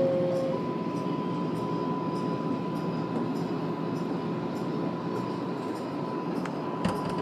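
Inside a moving R188 subway car on elevated track: steady rumble of the train running, with a steady high whine held for most of the time. One short sharp click near the end.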